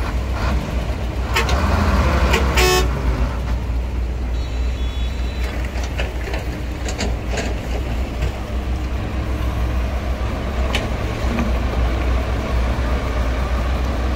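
Diesel engines of heavy earthmoving machinery running with a steady low rumble and scattered knocks. The engine noise swells about two seconds in, with a short horn toot.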